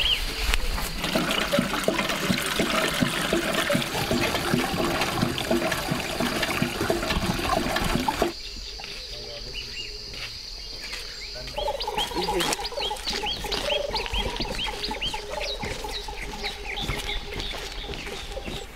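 Outdoor field sound: a busy rustling and shuffling noise with a steady high insect whine over it. About eight seconds in, the sound drops abruptly. After that comes a run of quick, short, high bird chirps, two or three a second.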